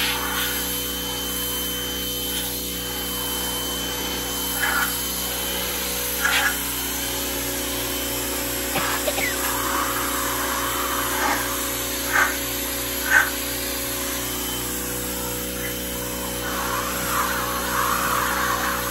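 Giraffe Tools 2200 PSI electric pressure washer running steadily with a hum, its jet of water hissing against the metal side of a pickup truck, with a few short louder bursts of spray.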